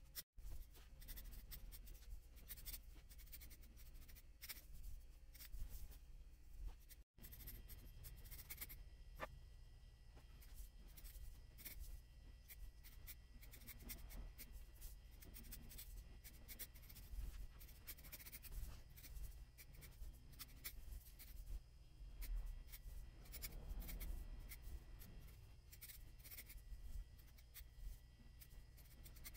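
Faint, scratchy snipping of scissors trimming the yarn pile of a hand-tufted rug, many quick irregular cuts.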